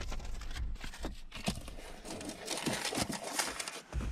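Paper rustling and crinkling in irregular bursts as sheets are leafed through and folded by hand, inside a car.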